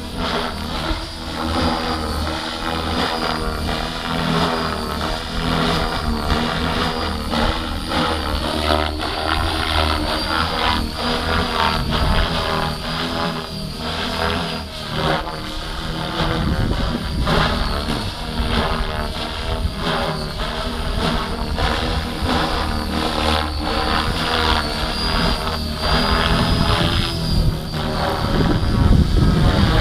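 Gaui X5 electric RC helicopter flying on Switch 523 mm main blades: a steady motor and gear whine with rotor blade noise, its pitch rising and falling as the helicopter manoeuvres. Wind buffets the microphone, strongest near the end.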